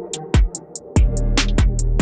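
Electronic background music with a kick-drum and hi-hat beat. The bass drops out briefly near the start, and the full beat comes back in about a second in.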